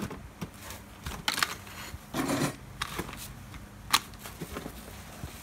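Rotary hammer drill parts and hand tools being handled: scattered clicks and clinks, a short scraping rustle about two seconds in, and a sharp tap near four seconds.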